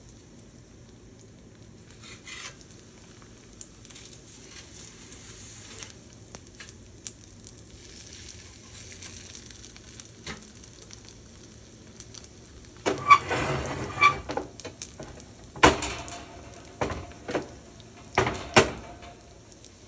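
Panko-coated tuna croquettes sizzling in a hot frying pan, faint at first; about thirteen seconds in the sizzle grows louder, with the clatter and sharp knocks of a utensil against the pan repeated until the end.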